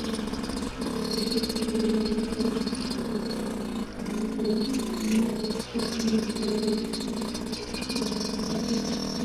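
Yamaha YZ125 two-stroke single-cylinder dirt bike engine running at low, slightly varying revs while being ridden at an easy pace, with two brief dips in level about four and six seconds in.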